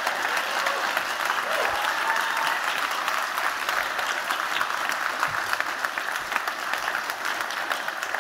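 Audience applauding steadily: a dense, even clatter of many hands clapping.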